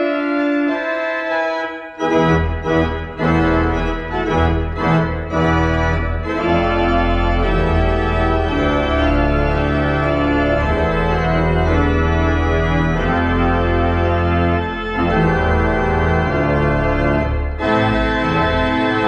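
Three-manual organ playing sustained chords. For about the first two seconds only the manuals sound; then the pedal bass comes in under the full organ and the playing continues loud, with a brief break near the end.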